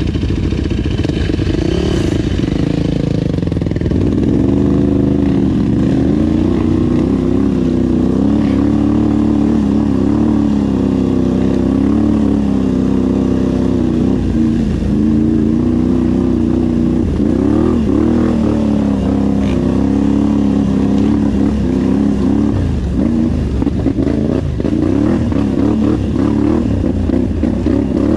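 Off-road vehicle engine running while being ridden on a trail, its pitch rising and falling with the throttle.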